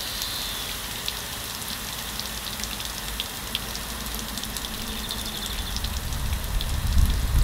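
Water spraying and dripping from a leaking fitting beneath a copper basin with two taps, a steady patter of small drips; the fixing underneath is thought to be broken. A low rumble swells near the end.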